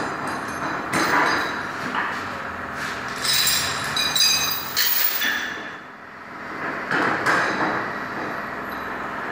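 Metal knocking and clanking from bodywork, with a ringing stretch in the middle, over a steady workshop machinery hum.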